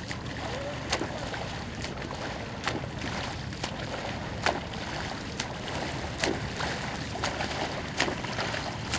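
Kayak paddling on open water: a steady rush of water and wind with a sharp splash or knock about once a second as the paddle blades strike the water.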